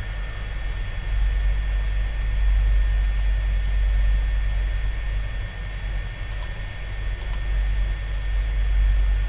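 Steady low electrical hum with hiss and a few faint steady higher tones, the noise floor of a home recording setup. Two faint clicks come about six and seven seconds in.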